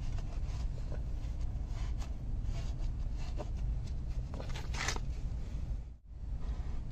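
Handling sounds: scattered rustling, scraping and small clicks over a steady low rumble, with a brief louder rustle near the end. The sound drops out for a moment about six seconds in.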